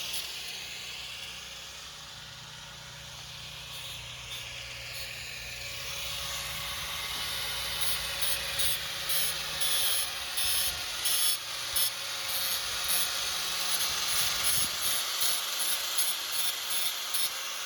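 Hand work on a small sheet-steel bracket: a steady hiss, then about halfway through a run of short, sharp scraping strokes, roughly two a second.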